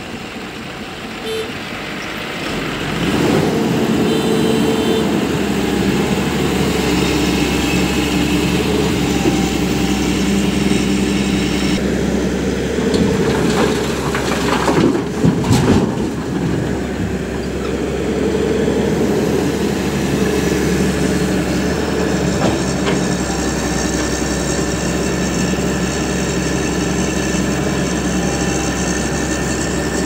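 Hyundai crawler excavator's diesel engine running under hydraulic load, picking up about three seconds in and holding steady. Around the middle, a cluster of knocks and crashes as the bucket dumps soil into the tipper truck's steel body.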